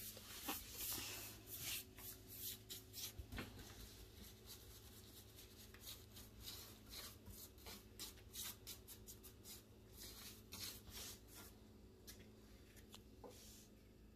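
Faint scratchy swishes of a paintbrush's bristles working thick chalk paint over a wooden tabletop edge. The strokes come quickly in the first few seconds, then more sparsely.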